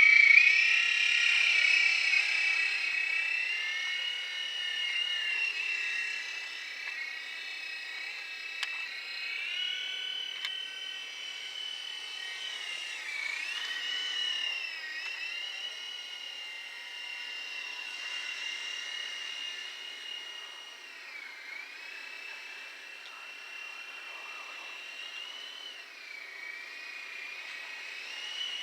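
Remote-control helicopter's motor and rotor whining steadily at a high pitch, dipping briefly in pitch a few times as the throttle changes. Loudest at first, then fading as it flies farther off.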